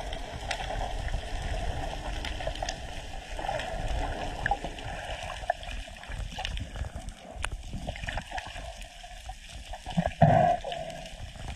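Muffled water noise heard underwater: a steady rush and gurgle of moving water and bubbles with scattered small clicks, and a louder burst of bubbling about ten seconds in.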